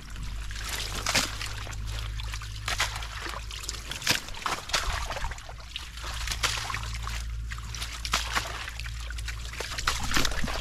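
Water splashing and sloshing in irregular bursts, over a steady low rumble.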